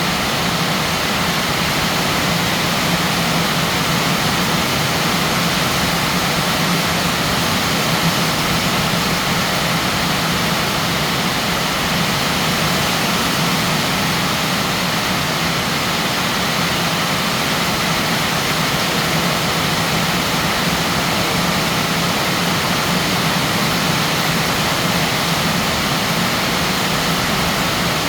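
Heavy rain falling hard, a steady, even hiss.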